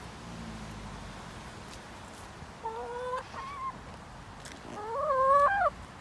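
Hen calling twice: a shorter drawn-out call about halfway through, then a louder one about five seconds in that rises in pitch and holds.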